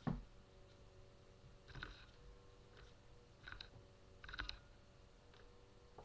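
Faint clicks and soft taps from a kitten batting and clawing close to a webcam microphone: one louder knock at the very start, then three small clusters of clicks, over a faint steady hum.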